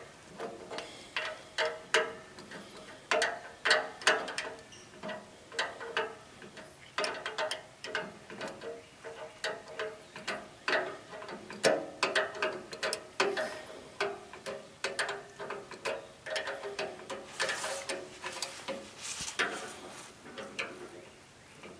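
A hand wrench clicking and clinking on a half-inch fuel line fitting as it is worked loose on the carburetor of an International 240 tractor. The short metallic clicks come at an irregular pace.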